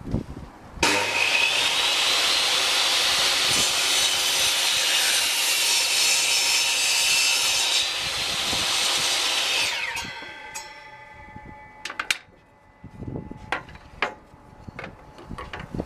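Titan TTB674TAS 254 mm table saw switched on just under a second in, its motor whine rising as it comes up to speed, running loud and steady for about nine seconds. It is then switched off, and the whine falls away as the blade spins down, with a few sharp knocks near the end.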